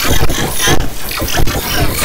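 A 'G-Major' audio edit: a short clip stacked at about thirty pitches at once, from far below to far above the original, merging into a loud, harsh, distorted wall of sound that flickers constantly.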